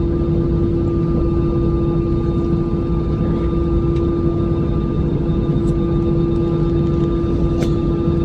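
Airplane engine running with a loud, steady hum that holds one pitch throughout.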